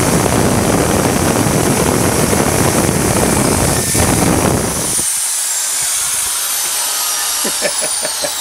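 Makita corded hammer drill boring into a steel garden fork, a high motor whine over the grinding of the bit. About five seconds in the cutting stops and the drill runs free, and near the end the motor winds down, its whine falling in pitch.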